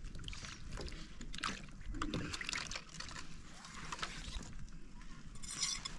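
Water poured from a plastic jug into a metal bowl, then splashing and sloshing as potatoes are rubbed clean in it by hand, with scattered short knocks against the bowl.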